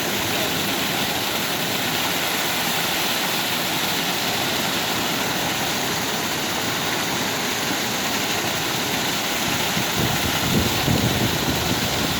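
Waterfall: a steady rush of falling water, with some extra low rumble near the end.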